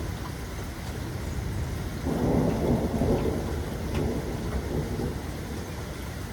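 Steady rain with a low rolling rumble of thunder that swells about two seconds in and fades over the next few seconds.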